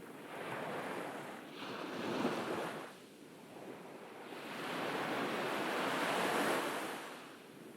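Ocean waves breaking and washing up on a beach: surf swelling and receding, with a smaller wave early on and a larger one in the second half, and a little wind on the microphone.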